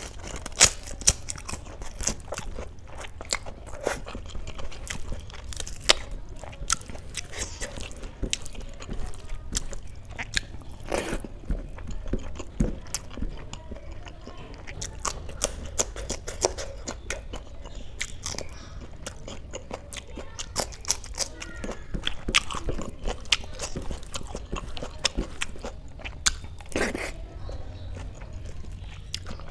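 Close-miked eating: crunching bites of a crisp papad and chewing, with many small crackles and mouth clicks. Near the end, fingers squish rice and wet kadhi together on a steel plate.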